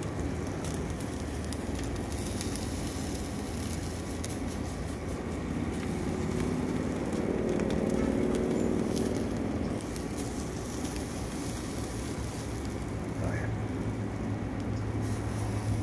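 Mesquite charcoal burning hard in a chimney starter: flames rushing with scattered crackles, swelling louder for a few seconds in the middle.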